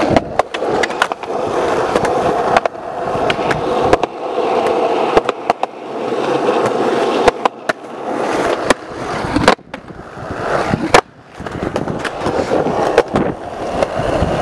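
Skateboard wheels rolling on concrete, the rolling noise swelling and fading, with several sharp clacks of the boards spread through it.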